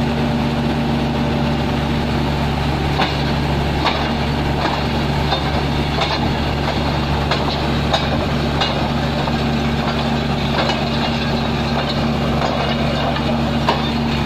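Excavator's diesel engine running steadily at idle, with scattered sharp metallic clinks and knocks over it.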